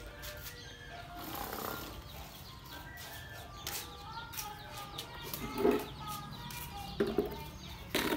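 Many short chirping, clucking calls from animals, with a few sharp knocks and short thumps about five and a half, seven and eight seconds in.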